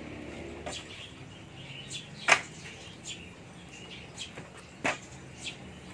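A handful of sharp clicks and knocks of metal on metal as an electric kick scooter's rear hub motor is handled and turned over. The loudest knock comes a little over two seconds in.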